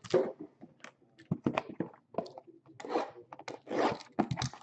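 Hands handling cardboard card boxes and packaging: irregular short taps, scrapes and rustles.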